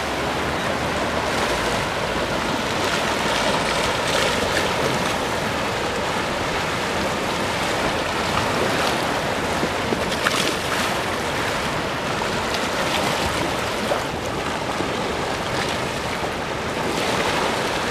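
Strong waves breaking against the shore wall and washing across a flooded concrete walkway: a steady rush of water with a few brief louder surges.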